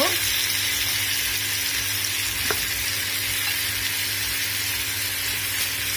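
Chicken drumsticks sizzling in hot oil in a nonstick frying pan: a steady frying hiss, with a low steady hum underneath and a single light knock about two and a half seconds in.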